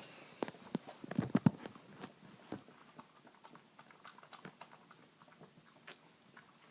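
A dog licking and eating egg off a floor: quick wet lapping and smacking, with a cluster of louder smacks about a second in, then sparser, fainter licks.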